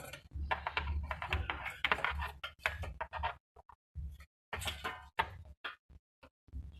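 Irregular runs of quick clicking and scratching, broken by short pauses: a trapped rat scrabbling.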